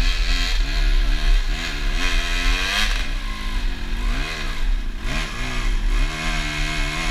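Enduro dirt bike engine revving up and down several times as the throttle is worked on a rocky climb.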